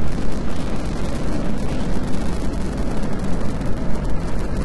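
Saturn V rocket's first stage, five F-1 engines, at full thrust during ascent: a steady, dense low rumble with continuous crackle.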